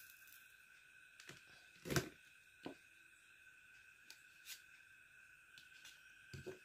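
Faint clicks and taps of small circuit boards and wires being handled on a workbench, the loudest knock about two seconds in, over a faint steady high-pitched whine.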